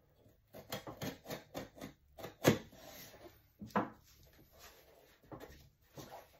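Cardboard shipping box being handled and pried at as someone struggles to get it open: a run of short rubbing scrapes, with a sharp knock about two and a half seconds in.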